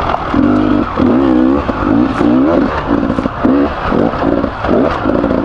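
Beta 300RR two-stroke enduro motorcycle engine revving in short bursts, about two a second, the pitch rising and falling as the throttle is worked over rough ground. The engine is freshly rebuilt with a new piston and bearings.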